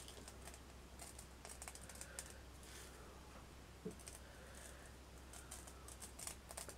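Faint, scattered light clicks of small crystal chips being sprinkled and pressed into place on a resin-coated board, with a slightly stronger knock about four seconds in, over a steady low hum.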